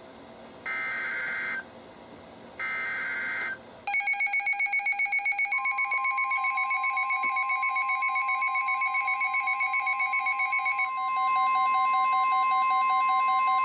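NOAA Weather Radio SAME data header: two short bursts of buzzing digital tones, a second apart, announcing a flash flood warning. After them, weather-alert receivers sound their alarms with rapidly pulsing beeps, which change pattern about eleven seconds in. A steady single-pitch warning alert tone joins the beeps about a second and a half after they start.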